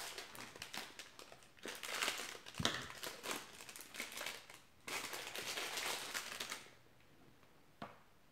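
Plastic candy packaging crinkling and rustling as it is handled and opened, in three stretches that die down about two seconds before the end, followed by a single small click.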